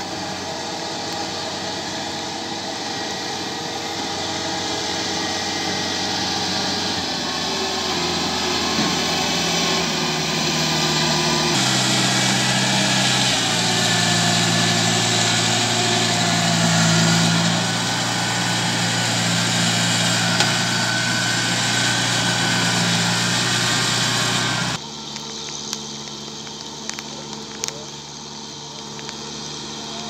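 A Kubota rice combine harvester's engine running steadily under load while it cuts. It is louder and closer through the middle stretch, then drops sharply near the end to a quieter engine with a few light clicks.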